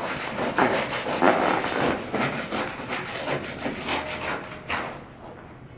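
Repeated rough rubbing or scraping strokes, about two or three a second, growing fainter near the end.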